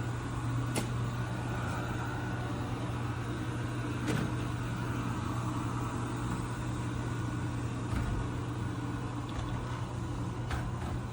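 eufy RoboVac 11S Max robot vacuum running: a steady motor and suction-fan hum, with a few light clicks spread through it.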